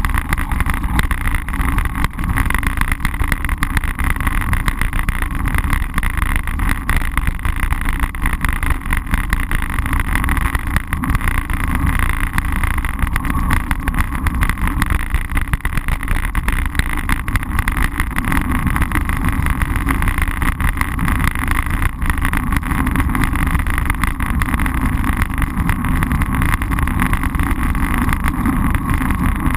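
Steady rumble of wind and road vibration picked up by a GoPro Hero mounted on a moving road bicycle's handlebars. It is loudest in the low rumble and does not let up.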